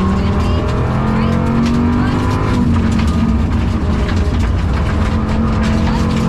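Rally car at speed on a gravel stage, heard from inside the cabin: the engine runs hard under load with its pitch climbing and dipping, and loose stones tick and rattle against the car. The engine has a bad misfire and is down on power.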